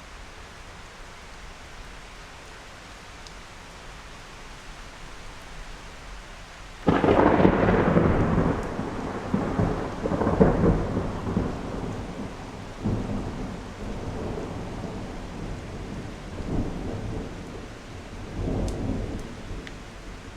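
Steady rain, then a thunderclap about seven seconds in that rumbles on in several rolling swells and dies away near the end.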